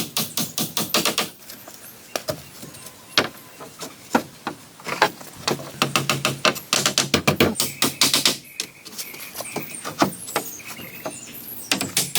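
A hand tool striking wood in quick runs of sharp knocks, several a second, with short pauses between the runs.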